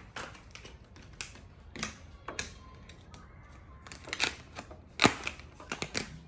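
Vinyl wrap film being worked onto a car roof: irregular sharp clicks and short scrapes, loudest about five seconds in.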